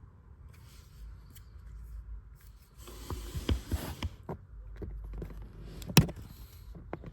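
Scattered clicks and knocks of plastic parts being handled, with a rustle about three seconds in and a sharper knock about six seconds in.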